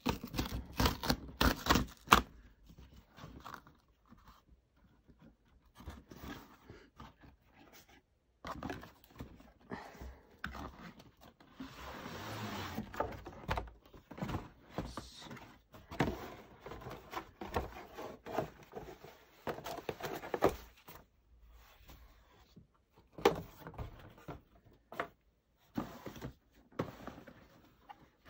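Cardboard packaging being torn open and handled: a shipping box ripped along its perforated tear strip, then a shoebox slid out and its lid lifted. Loud sharp cracks come in the first two seconds, then tearing, scraping and knocks of cardboard, with a longer scraping stretch about midway.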